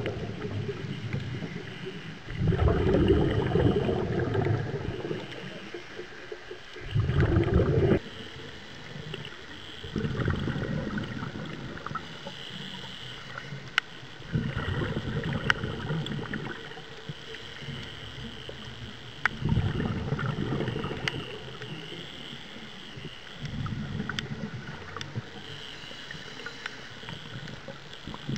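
Scuba diver's exhaled bubbles rushing from the regulator in bursts every few seconds, heard underwater, with a few sharp clicks in between.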